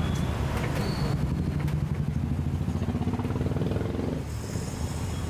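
A motor vehicle engine running nearby on a roadside, its pitch rising a little, then fading out about four seconds in. A few light knocks sound over it.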